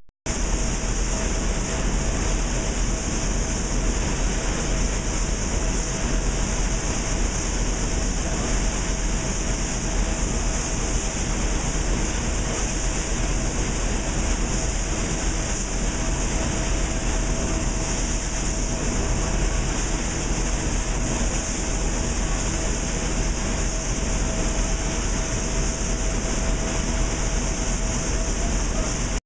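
Cotton gin running, with air rushing through the suction pipe that draws seed cotton in from the pile: a steady rushing roar with a faint constant whine.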